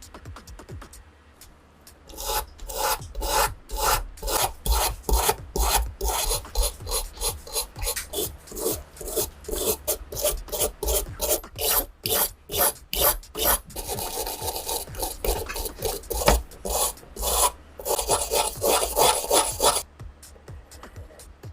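Hand abrasive strokes rasping back and forth on a metal pistol part during rust removal, about two to three strokes a second, turning into a steadier rub in two short stretches near the end.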